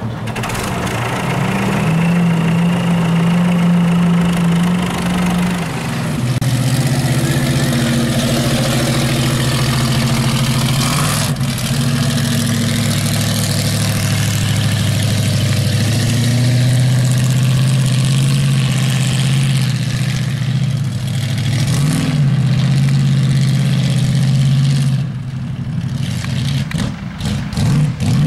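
Lifted mud trucks' engines held at high revs while churning through deep mud, running steadily with the pitch shifting down and settling about six seconds in, then varying again near the end.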